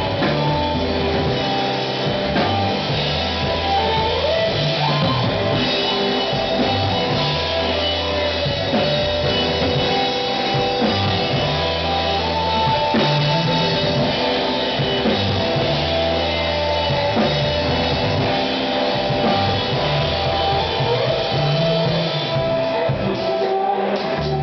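Live rock band playing: electric guitar and drum kit over a repeating low bass line.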